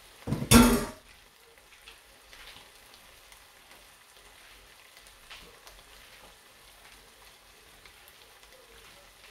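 Faint, steady sizzle of stir-fried octopus and vegetables cooking in a nonstick frying pan, with one brief loud sound about half a second in.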